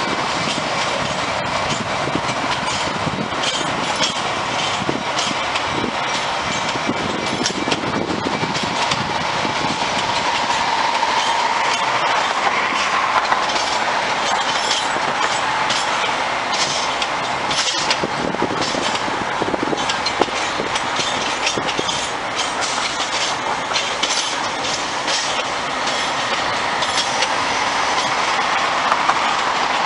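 Metra commuter train of bilevel gallery cars rolling slowly past, wheels clicking irregularly over rail joints and switches. A faint thin wheel squeal rises and falls over the steady rumble of the cars.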